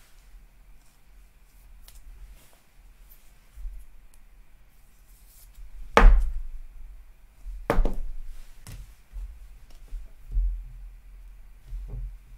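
A trading card being slid into a clear rigid plastic top loader and handled, with a few sharp knocks and clicks. The loudest comes about six seconds in, and two more follow within the next three seconds.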